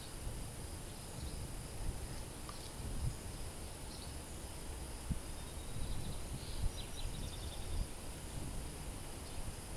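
Light wind gusting against the microphone, with faint high bird chirps and insect calls; a quick run of chirps comes about two-thirds of the way through.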